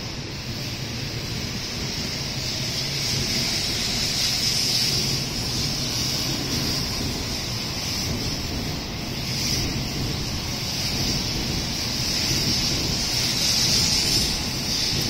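N700A Shinkansen train pulling out and gathering speed as its cars slide past: a steady rushing of air and wheels with a high hiss, growing louder over the first few seconds.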